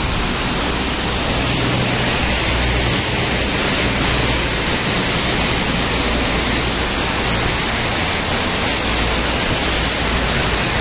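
Heavy rain pouring down, a loud steady hiss with a low rumble underneath.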